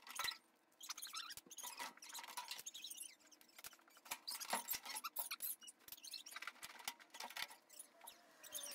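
Faint squeaks and light clicks, many in quick succession, from a GE top-load washer's plastic outer tub being handled as its suspension rods are taken off.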